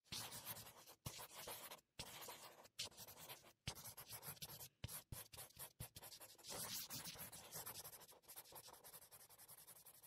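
Faint scratching in irregular strokes broken by short gaps, like a pen scribbling, as a sound effect under an animated logo reveal.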